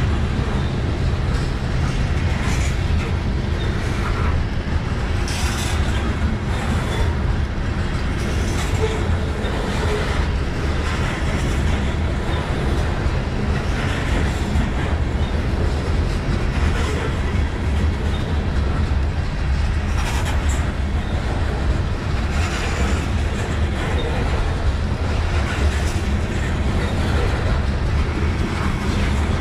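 Covered hopper cars of a grain train rolling slowly past on the rails, a steady low rumble of wheels with scattered short clicks.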